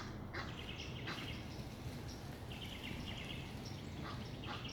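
Egyptian geese calling, three runs of rapid repeated notes.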